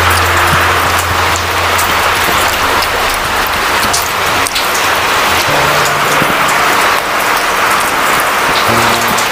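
Rain falling steadily, a dense, even hiss of drops.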